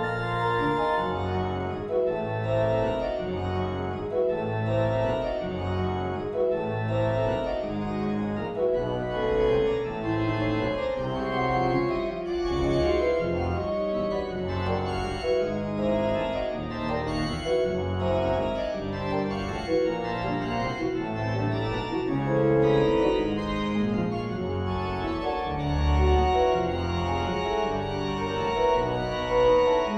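Pipe organ in a MIDI rendering playing modern, chromatic music. Dense chords sound on the manuals over a pedal bass line that carries the melody, with low bass notes returning about once a second.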